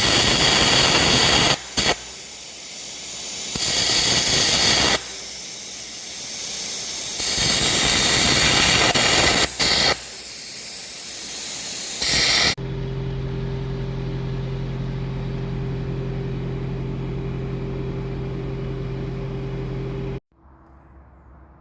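Arc gouging of the crack in a dump truck's cracked rear axle housing: a loud, harsh hiss in several long runs with short breaks, stopping about twelve seconds in. Then a steady machine hum for about seven seconds that cuts off suddenly.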